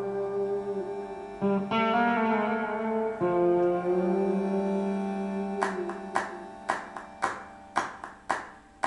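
Instrumental music played back through a pair of Paradigm Monitor 11 floor-standing speakers driven by an Emotiva XPA-2 Gen3 power amplifier. Held notes give way, a little past halfway, to a run of sharp single plucked notes about two a second, each dying away quickly.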